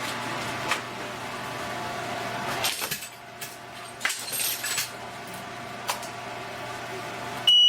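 Small plastic parts and cables being handled, giving scattered clicks and clatters over a steady electrical hum. A short, high electronic beep sounds near the end.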